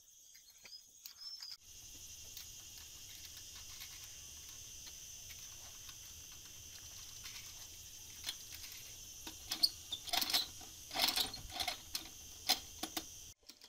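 Sharp metal clicks and clacks from a homemade quick-action bench vise as its lever and cam plate are worked by hand, clustered in the second half, over a steady low hum and hiss.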